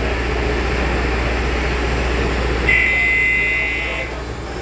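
Steady low hum inside a standing light-rail car. About two and a half seconds in, an electronic door-warning beep sounds steadily for just over a second while the doors stand open.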